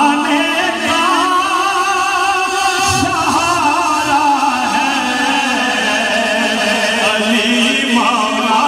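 A man singing a devotional Urdu manqabat in praise of Ali into a microphone over a sound system, his voice carrying long, wavering held notes.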